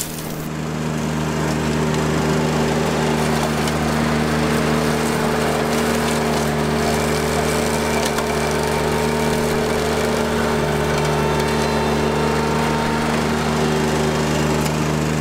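Ventrac compact tractor's engine running steadily under load, with its front-mounted mower deck cutting through thorny bramble brush. The sound swells over the first second or two, then holds at a steady level.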